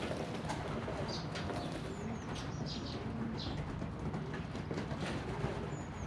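Pigeons bathing in a shallow tray of water: irregular splashing, with soft cooing. Short, high, falling chirps of other birds come a few times, over a steady low rumble.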